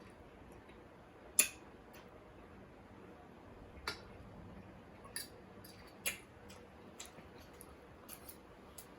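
Eating sounds at close range: a scattering of sharp clicks and light taps from mouth and utensils while chewing. The loudest click comes about a second and a half in.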